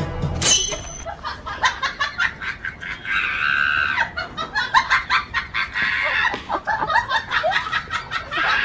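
Chickens and roosters clucking and squawking in quick, repeated calls, with a longer held squawk about three seconds in.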